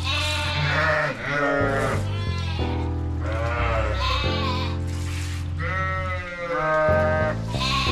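Sheep bleating, about five wavering calls roughly a second each, over background music with sustained chords.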